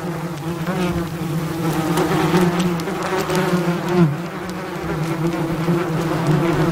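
Honeybees buzzing in a steady hum around an opened hive: a busy colony, which the beekeeper calls very healthy.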